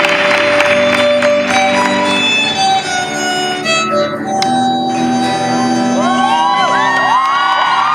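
Violin played with a bow, a slow melody of held notes over crowd noise that fades in the first couple of seconds. About six seconds in, whistles from the audience start, several overlapping, each rising and falling in pitch.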